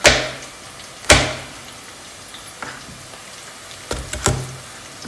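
Kitchen knife chopping through eggplant onto a plastic cutting board: five sharp chops at an uneven pace. The first two are the loudest, there is a faint one midway, and two come close together near the end.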